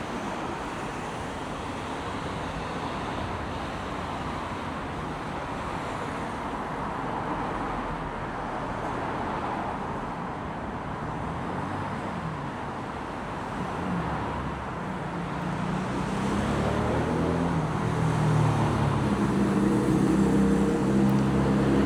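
Road traffic: a steady rush of passing cars, with a low engine drone building and growing louder over the last several seconds.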